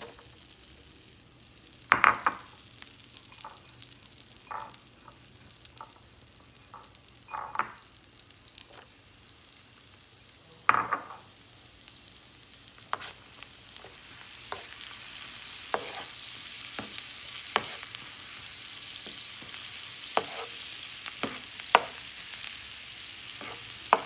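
Minced garlic sizzling in melted butter in a nonstick frying pan, the sizzle growing louder about halfway through. Scattered knocks and clicks of utensils against the pan, the loudest about two and eleven seconds in.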